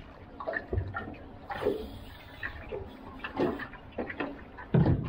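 Harbour water slapping and sloshing against the hull of a small aluminium boat in irregular surges, with a loud thump near the end.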